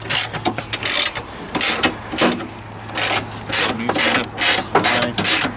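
Irregular metallic clicks and knocks from hand tools at work on the car's body and parts, a few strikes a second and unevenly spaced, over a steady low hum.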